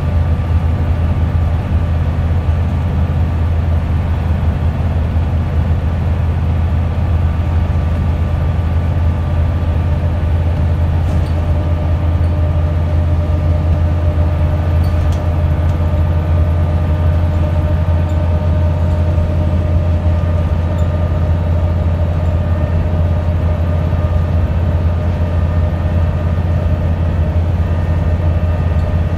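Diesel engine and drivetrain of a Scania-chassis Wright Solar single-deck bus, heard from inside the saloon while under way: a steady low drone with a faint steady whine above it.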